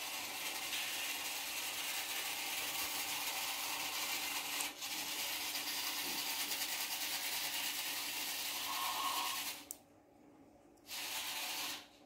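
Small 100 RPM geared DC motors of a robot car whirring as it drives, starting suddenly, with a brief break about halfway through. They stop near ten seconds, then run again for about a second.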